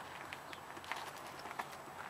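Faint, scattered light clicks and taps over a quiet outdoor background.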